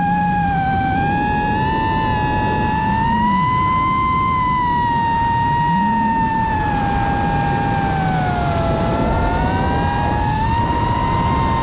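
FPV quadcopter's electric motors and propellers whining steadily, the pitch drifting slowly up and down with throttle, at times splitting into two close tones.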